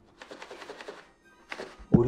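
Soft background music, with a short scratchy noise during the first second; a woman's voice starts right at the end.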